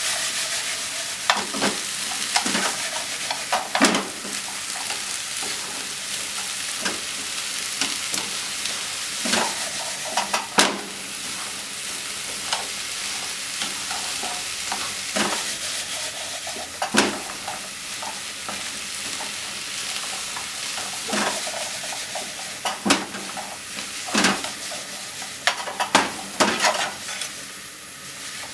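Wiener sausages and sliced vegetables sizzling as they are stir-fried in a frying pan: a steady hiss of frying, broken every second or two by sharp clicks and knocks from the stirring.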